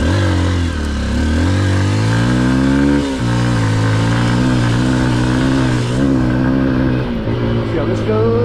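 Honda XR150L's air-cooled single-cylinder four-stroke engine accelerating hard: the revs climb for about three seconds, drop sharply with an upshift, then pull on steadily, with another drop in pitch about seven seconds in.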